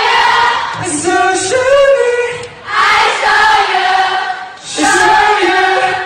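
Singing at a live concert: several voices together on long held notes in phrases, breaking briefly about two and a half and four and a half seconds in.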